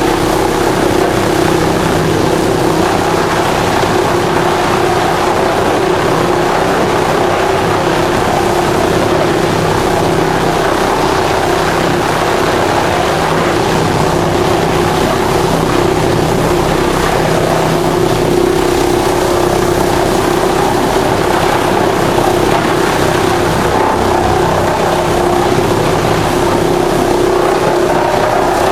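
Drum wood chipper running steadily: a loud, constant machine drone with an even hum that does not change.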